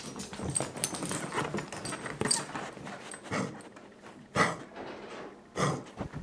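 A dog coughing: a run of quick hacking coughs in the first two seconds or so, then three separate coughs about a second apart, the loudest about four and a half seconds in.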